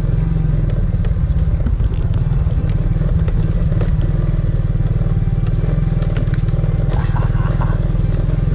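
Motorcycle engine running steadily under way, a loud continuous low rumble.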